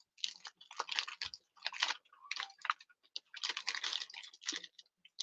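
Plastic toy packaging crinkling and clicking as it is handled, in irregular clusters of small crackles with short pauses between.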